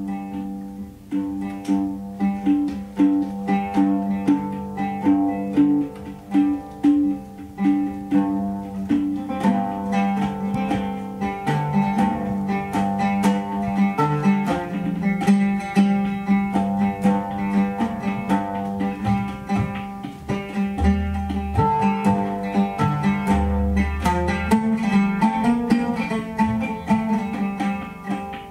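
Oud plucked in quick, rippling runs over a steady low drone, in a live ensemble. Two deep booming notes sound about two-thirds of the way through.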